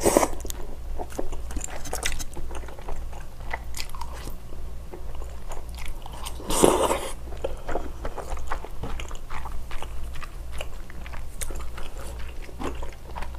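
Close-miked chewing of spicy stir-fried glass noodles, gopchang and seafood, with many wet mouth clicks and smacks. About six and a half seconds in there is a short, louder slurp of noodles.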